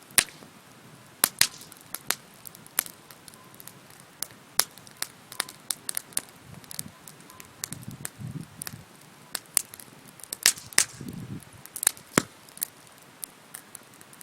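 Wood bonfire crackling, with sharp irregular pops and snaps of varying loudness, a couple of the strongest early on and near the end. Two short, soft low rumbles come about eight seconds in and again about three seconds later.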